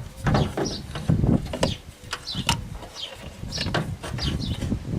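Irregular knocks, clicks and clinks of tools and parts being handled during blower-motor work, with short bird chirps.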